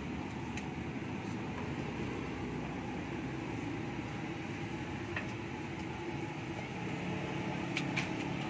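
Steady low background rumble, with two light taps near the end as a woven bamboo steaming cone is handled on a paper-covered counter.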